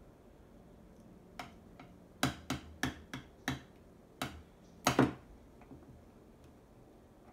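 A string of sharp, hard taps and clicks, about nine in under four seconds, the last two the loudest, from handling the plastic ant farm and the ants' test tube.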